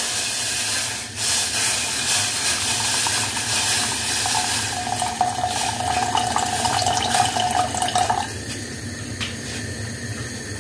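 Water pouring in a steady stream from a kettle into a stainless steel pot, filling it over toasted spices. A steady ringing tone sounds through the splashing for a few seconds in the middle, and the pour stops about two seconds before the end.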